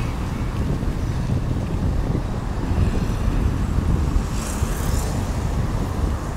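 Wind buffeting the microphone and a low road rumble from a bicycle-mounted or handheld camera riding along a street with motor traffic. A brief hiss comes about four and a half seconds in.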